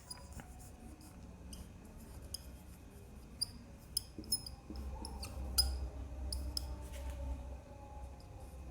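Faint scattered small clicks and short squeaks, with a low rumble for a couple of seconds past the middle.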